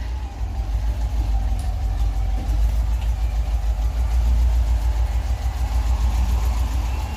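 VW Kombi engine running steadily at idle, a low, even rumble through its newly replaced exhaust and twin mufflers, with no rattle or banging from the exhaust.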